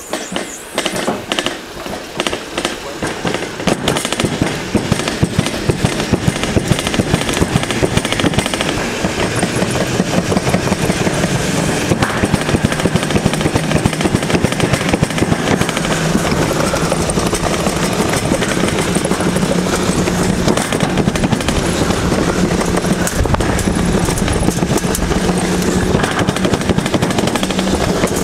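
Alpine slide sled running down its trough with no braking, giving a fast continuous rattle and rumble that grows louder over the first few seconds as it gathers speed. A steady low hum joins in from about halfway through.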